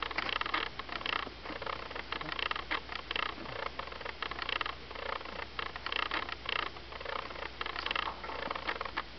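Rapid scratchy scraping and crunching strokes, a few a second, at a horse's lifted hind hoof as it is held up and worked on. The strokes stop suddenly near the end.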